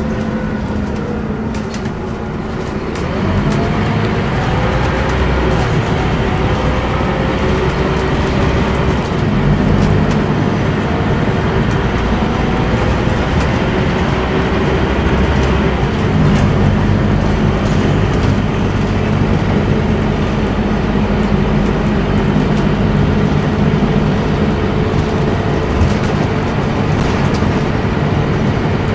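Inside the passenger cabin of a 2008 Scania K230UB bus: its five-cylinder diesel engine pulling along the road, with steady road and body noise. It gets louder about three seconds in.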